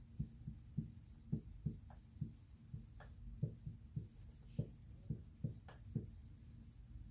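Green dry-erase marker writing on a whiteboard: a string of short, soft taps and strokes, irregular, about two or three a second.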